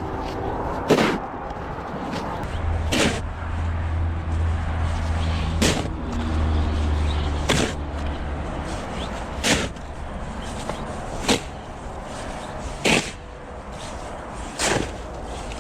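Sharp snap-like hits repeating evenly about every two seconds, with a deep bass tone under them for several seconds in the middle.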